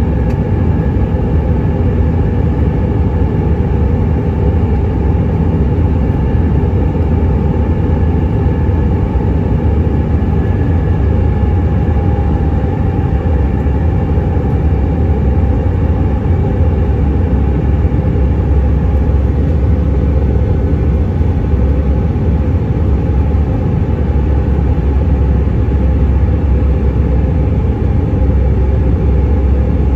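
Steady cabin roar of an Airbus A319's IAE V2500 turbofan engines in flight, heard from a window seat over the wing: a deep rumble with a faint engine whine on top that rises slightly about halfway through.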